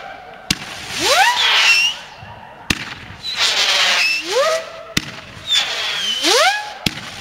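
"Monster King" firework firing single shots about every two seconds. Each shot gives a sharp launch pop followed by a loud hiss and a whistle that rises in pitch as it climbs; four shots go off.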